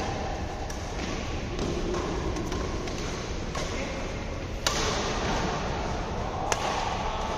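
Badminton rackets striking a shuttlecock in a rally: sharp cracks every second or so, the loudest about two-thirds of the way through and another near the end, over steady background noise.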